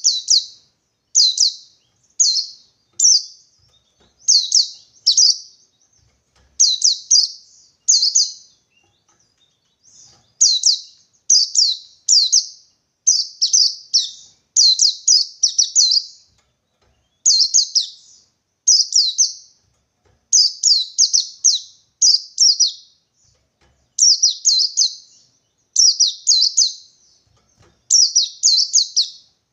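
Pleci ngalas (a white-eye) singing its '123' beat song: short, high chirpy phrases of two to four quick notes, repeated every second or so with brief pauses between. It is a call song of the kind used to provoke other white-eyes into singing.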